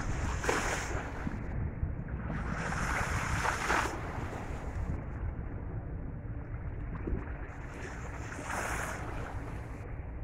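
Wind rumbling on the microphone, with bay water washing against the shore in a few soft surges.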